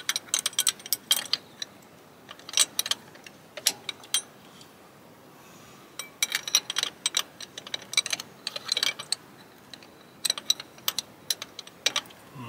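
Ratchet spanner clicking in short runs of strokes with pauses between, working a fuel pump mounting bolt on a Cummins NHRS diesel engine.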